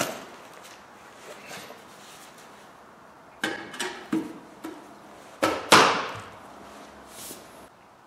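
Knocks and clunks from handling home-made speaker stands, their round stool-seat tops set onto the chrome steel posts. A sharp knock at the start, a cluster of lighter knocks about three and a half seconds in, then two louder clunks around five and a half seconds, the last ringing briefly.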